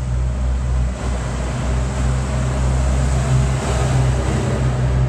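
A truck driving past on the road, a steady engine rumble with road noise that swells to its loudest a little past the middle.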